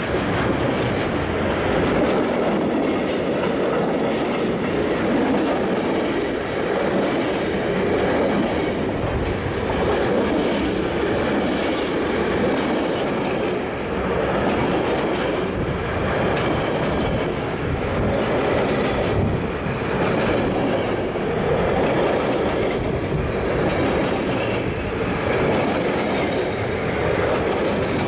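Loaded container freight wagons rolling past close by: a steady, loud run of steel wheels on the rails.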